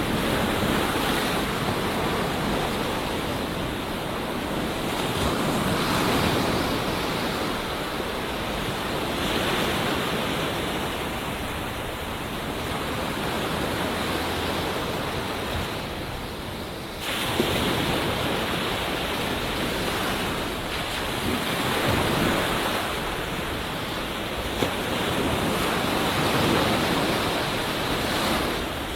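Ocean surf washing onto a beach, a steady rush of white water that swells and fades every few seconds as waves break. About seventeen seconds in, the level drops briefly and then jumps up abruptly.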